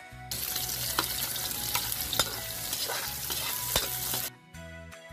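Chopped onions and ginger sizzling in hot oil in a metal wok as they are sautéed and starting to brown, a spatula stirring and scraping with scattered sharp clinks against the pan. The sizzle starts just after the beginning and cuts off suddenly about four seconds in.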